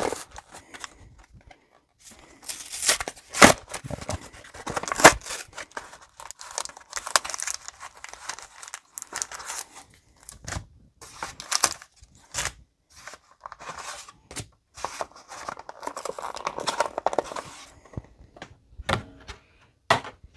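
Cardboard-and-plastic blister pack being torn open by hand: tearing and crinkling in irregular bursts with short pauses.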